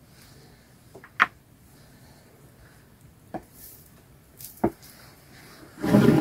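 Hand-pulled wooden churning stick spinning in a pot, giving a few sharp wooden clicks and knocks. Near the end a loud, dense sound sets in.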